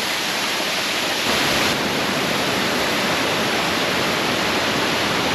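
Waterfall rushing steadily: a dense, even hiss of falling water, slightly louder for a moment about a second in.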